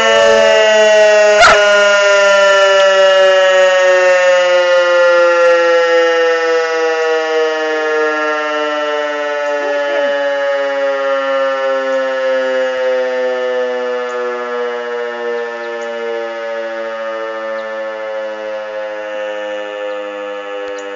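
DS977 civil-defence motor siren winding down after its test alarm: its tone slides slowly and steadily lower in pitch and fades as the rotor coasts to a stop. A single sharp click about a second and a half in.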